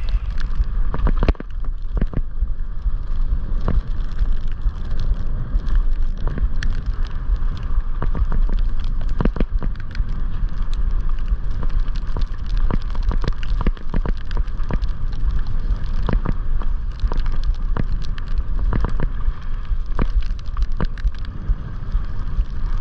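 Mountain bike riding fast over a wet, muddy dirt trail: a steady rush of tyre and wind noise with a low rumble, broken by frequent sharp clicks and knocks as the bike rattles over bumps.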